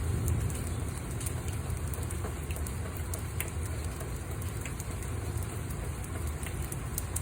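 Steady rain, with scattered sharp drops striking close by over a low, even rumble.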